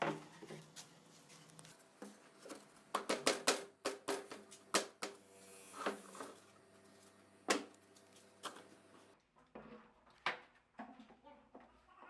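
Scattered sharp knocks and clicks, with a quick run of them about three seconds in and a brief hiss a little later.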